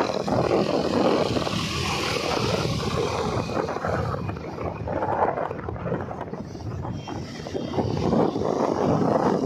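Wind rushing over the microphone, mixed with engine and road noise from riding along a street on a small motor vehicle. The noise rises and falls unevenly.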